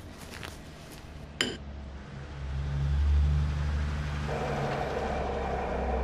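A sharp metallic clink as the leak detector's test rod meets the valve, then a steady low rumble, joined about four seconds in by a rushing noise: the simulated sound of a water leak picked up through the valve.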